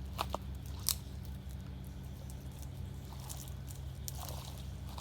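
A few sharp cracks and crunches in the first second, then faint scattered rustling and ticks: twigs and brush breaking as a branch is pulled aside. A steady low hum runs underneath.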